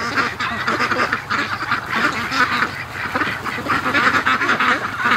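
A flock of domestic Pekin ducks quacking without a break, many calls overlapping into a steady chatter.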